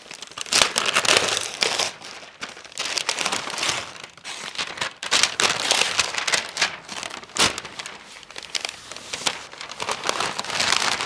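Gift wrapping paper crinkling and rustling as a present is unwrapped, in a dense run of irregular crackles.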